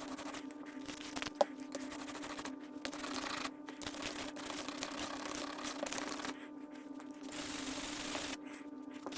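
Bench grinder running with a wire wheel, a steady motor hum under a harsh scraping hiss as a metal hand-plane part is held against the wheel. The scraping stops briefly several times as the part is lifted off.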